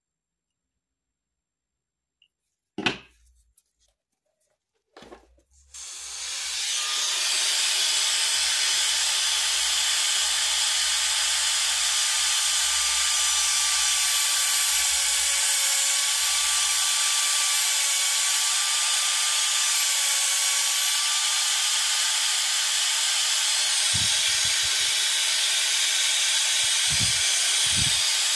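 A couple of sharp clicks, then about six seconds in a dental low-speed contra-angle handpiece spins up and runs steadily, a high hiss with a faintly wavering whine, as its drill widens the root canal of an extracted tooth for a post.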